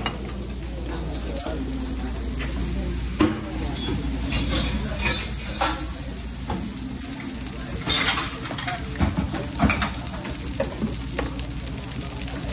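Eggs and bacon sizzling on a short-order griddle and in small skillets, under a steady low hum, with scattered clinks and knocks of pans, plates and utensils, the sharpest about three seconds in and about eight seconds in.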